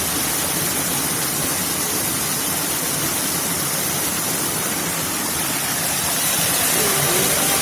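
Steady rush of falling water. Music comes in near the end.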